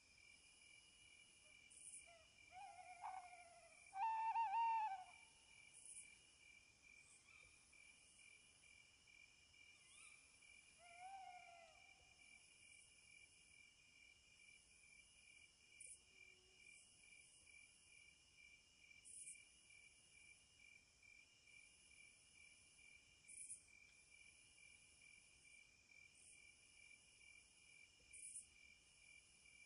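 Faint night ambience: insects trilling steadily in a fast pulsing rhythm. A few short hooting calls, each falling in pitch, come in the first five seconds, the loudest about four seconds in, and once more about eleven seconds in.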